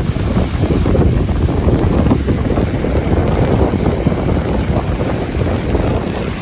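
Strong wind buffeting the microphone in a steady, rumbling rush, over waves washing onto a lakeshore in an easterly wind.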